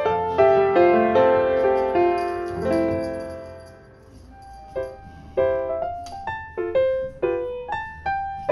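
Background piano music, single notes and chords that thin out to a short lull about halfway through, then pick up again with quicker notes.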